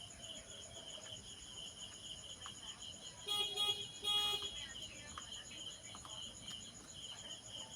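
Crickets chirping steadily in a fast pulsing trill, with two short horn toots about three seconds in, each about half a second long and the loudest sound here.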